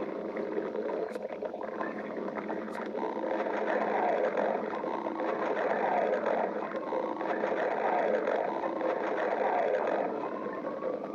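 A person's stomach growling from hunger: a continuous rumble that swells in the middle, with a thin, slowly rising whine toward the end.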